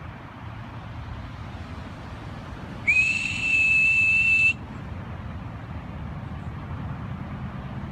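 A whistle sounding one steady, high, loud note for about a second and a half, a few seconds in, its pitch sliding up briefly at the start.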